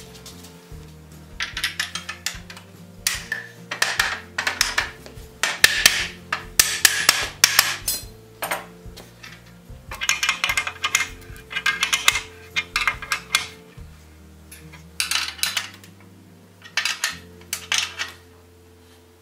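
Bursts of metal clinking and rattling as a hand wrench turns the nuts on iron brake hangers and clips of a wagon brake beam, over soft background music.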